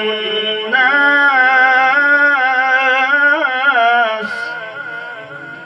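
A man reciting the Qur'an in the drawn-out melodic tajweed style through a microphone. He holds long notes with a wavering, ornamented melody, then stops about four seconds in, and the sound trails off.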